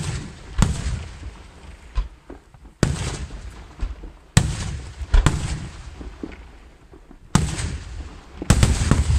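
Aerial firework shells bursting in a professional display: about eight loud, sharp bangs at uneven intervals, each followed by a rolling low rumble, with two coming close together near the end.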